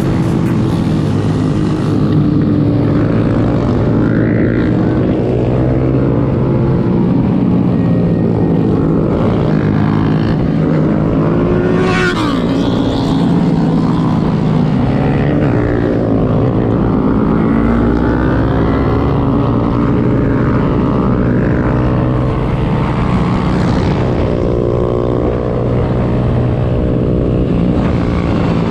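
Several small motorcycle engines running and revving as the bikes ride, their pitch rising and falling with the throttle over a steady rumble of engine and wind noise. One sharp rise and fall in pitch comes about twelve seconds in.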